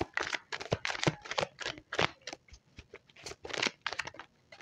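A deck of tarot cards shuffled by hand: a quick, irregular run of card flicks and snaps.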